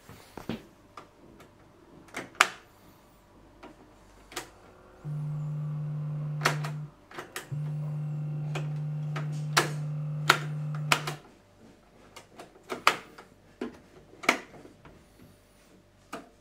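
Plastic clicks and clunks from the Panasonic RX-CS700 boombox's cassette door, deck keys and slide switches being worked by hand. A steady low hum comes in about five seconds in, breaks off briefly, and runs on until a few seconds before the end.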